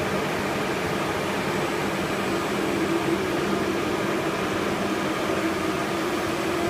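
Steady whir and hum of a large flatbed printer's fans and vacuum-table blower.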